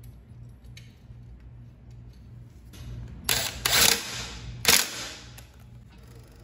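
Cordless impact driver run in short bursts, about three seconds in and again near five seconds, driving a rear disc-brake caliper mounting bolt home over an added washer.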